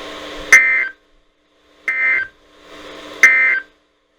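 Three short bursts of NOAA Weather Radio SAME digital data tones, evenly spaced about a second and a half apart: the end-of-message code that closes the severe thunderstorm warning. Radio hiss fills the gaps before the first and third bursts.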